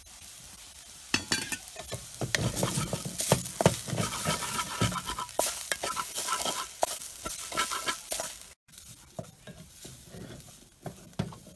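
A wooden spatula stirs and scrapes fried onions and spice powder around a stainless steel pan, with quick scrapes and taps against the metal over a low sizzle. The strokes come thick for about eight seconds. After a brief break they are fewer and quieter.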